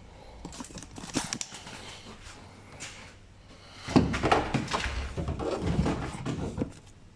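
Hands handling car parts: scattered clicks and knocks, then from about four seconds in a few seconds of louder rattling, knocking and rubbing that stops near the end.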